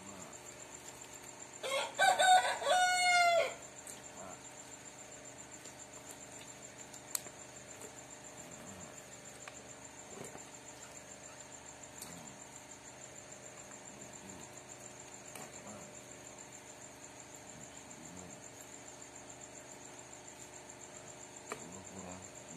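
A rooster crows once, loud, about two seconds in, the call lasting about two seconds; a steady high insect trill runs underneath.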